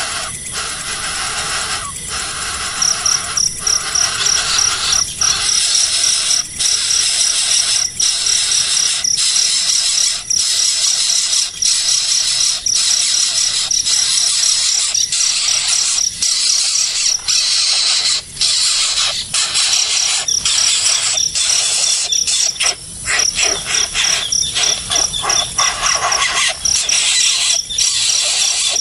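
Baby birds begging: a loud, hissing squeal that keeps up with short breaks every second or so, with a fast, high-pitched pulsing trill over it from about three seconds in.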